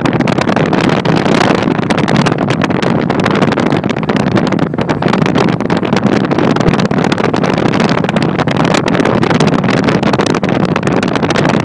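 Loud, steady wind rush buffeting the microphone, with constant crackling.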